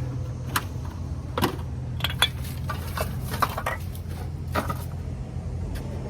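Scattered clinks and knocks of metal items being handled and shifted about, over a steady low hum.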